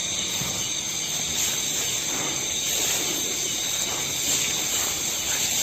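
A loud, snore-like sound like a person snoring, from an unidentified animal hidden in the undergrowth, over a steady high chorus of insects.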